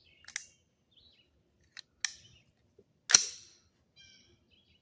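Metallic clicks from a 300 Blackout rifle being handled and readied to fire, then one loud, sharp clack about three seconds in. Faint bird chirps follow.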